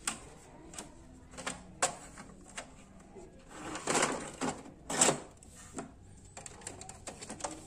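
Plastic clicks and knocks from a Brother DCP-T420W printer's paper tray and tray cover being handled and pushed back into the printer. A short sliding rustle comes a little before four seconds, and the loudest knock comes about five seconds in.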